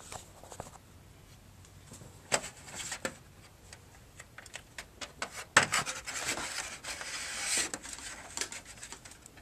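Rubbing and handling noises with scattered light clicks and knocks; a sharper knock about five and a half seconds in is followed by a couple of seconds of steady rubbing.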